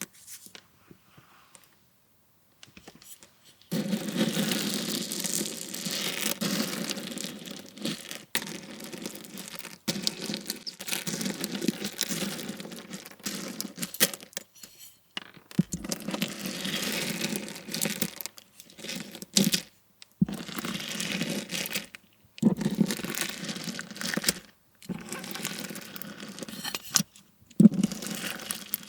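Slime packed with slushie beads being squeezed and stretched by hand, crackling and crunching in repeated bursts with short pauses between them. It starts after a few seconds of near silence.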